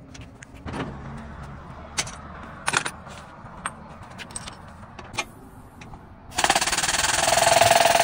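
Metal tyre-changing tools clinking and knocking against each other and the road. About six seconds in, a loud, rapid mechanical hammering starts suddenly and keeps going.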